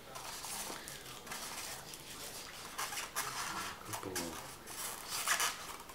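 Hands handling small parts of a crane model kit in its plastic packaging tray: rustling with light clicks and clatter, and sharper knocks about three seconds and five seconds in.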